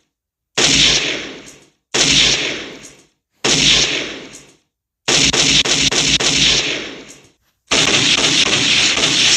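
A string of separate movie gunshot sound effects: three single shots, each with a sudden start and a long echoing tail. Then two bursts of rapid automatic fire, each ringing out after the last round.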